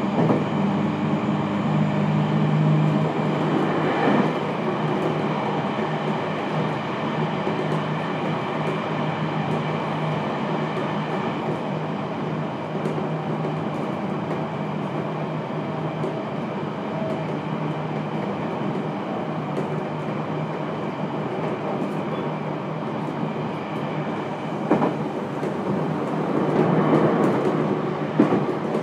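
Inside the car: a renewed JR Kyushu 811 series electric train (motor car KuMoHa 811-7609) running at speed. A steady drone of motor and wheel noise is overlaid with a few rail-joint clacks. A low motor tone fades away after about three seconds, and the rumble grows louder near the end.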